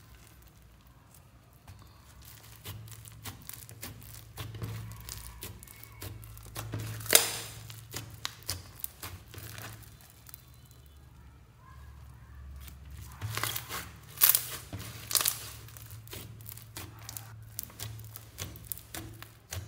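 Glitter slime packed with foam beads being squeezed and pressed by hand: crunchy crackling with scattered sharp pops, the loudest about seven seconds in and two more around fourteen and fifteen seconds in.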